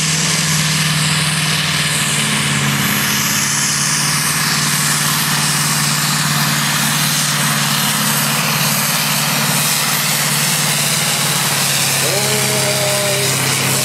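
Massey Ferguson pulling tractor's 10.5-litre diesel engine running flat out under load as it drags the pulling sled, its pitch held steady throughout.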